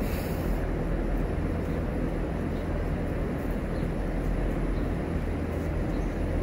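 Steady low mechanical hum of a running motor, even throughout with no breaks.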